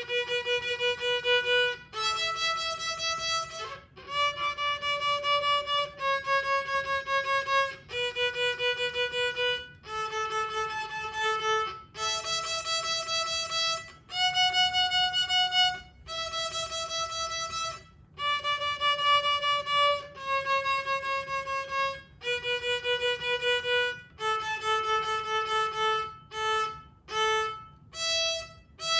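A violin bowed by a young beginner three months into lessons, playing a slow melody one long note per bow stroke, each note about two seconds. Near the end the notes turn short and quick.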